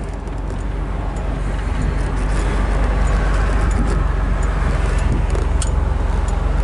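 A 1969 Mercedes-Benz 280SL's 2.8-liter inline-six running steadily as the car drives at low speed, heard from the driver's seat of the open convertible, with tyre and wind noise.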